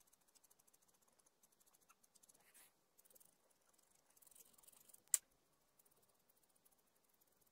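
Sanguine (red chalk) pencil hatching on paper: faint, quick scratchy strokes repeating several times a second, with one sharp click a little after five seconds.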